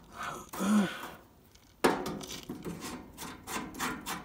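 Channel-lock pliers working a rusty fastener on an old swamp cooler's sheet-metal frame: a sharp clank about two seconds in, then a run of quick rasping scrapes, about three a second.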